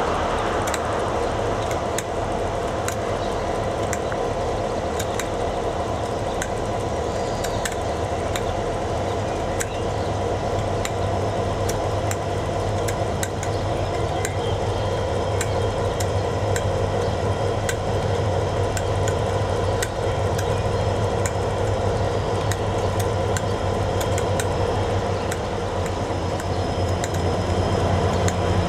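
KiwiRail DC-class diesel-electric locomotives idling at close range, a steady low drone with frequent light clicks over it. Near the end a DFT-class diesel locomotive rolling slowly closer adds its own engine note, and the sound grows a little louder.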